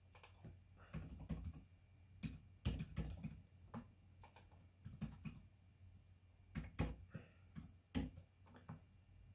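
Computer keyboard being typed on: irregular runs of key clicks with short pauses between them.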